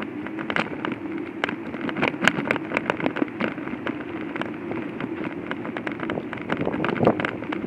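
Hoverboard rolling across floor tiles: a steady motor hum with frequent irregular clicks and knocks from the wheels and body, and a heavier knock near the end.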